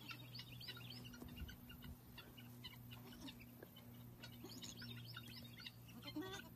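Faint chirping of small birds: many short, high calls scattered throughout, over a steady low hum.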